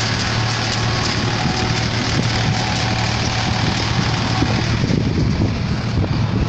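Tractor engine running steadily at a constant speed, with a strong low hum and a dense mechanical din.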